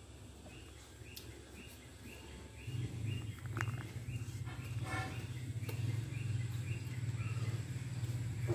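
Sow nursing her litter of newborn piglets. A low steady drone sets in about a third of the way through, a short squeal comes near the middle, and a high chirp repeats about twice a second.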